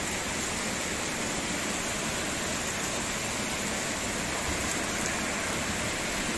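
Steady rain falling on a paved street and garden foliage: an even hiss without a break.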